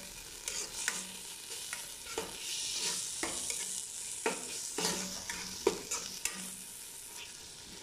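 Tomato paste frying with garlic and chopped coriander, sizzling in an enamel pot while a metal spoon stirs and scrapes it. The spoon knocks against the pot several times, about once a second.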